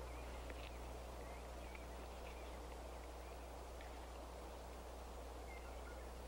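Quiet outdoor background: steady hiss and a constant low hum, with a few faint, short bird chirps.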